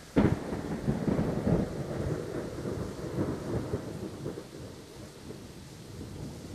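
A sharp, close thunderclap about a quarter-second in, breaking into a crackling rumble that fades over the next few seconds, over steady heavy rain.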